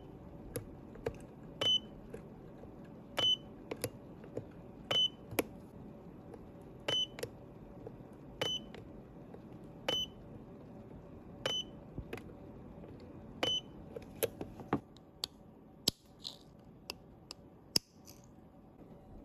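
Handheld battery spot-welder pen welding a battery cell's tab, giving a short high beep with a sharp snap at each weld, about nine times at one every one and a half to two seconds. Near the end come a few separate sharp clicks.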